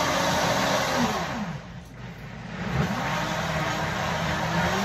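Countertop blender running on its automatic program, blending mango with sugar and water. About two seconds in, its whine falls as the motor slows to a brief lull, then rises again as it speeds back up.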